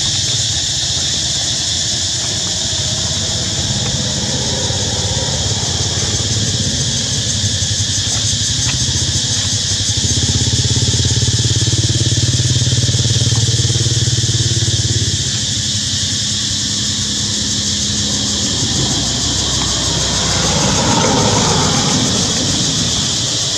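Low hum of a vehicle engine, louder from about ten to fifteen seconds in, over a steady high insect drone.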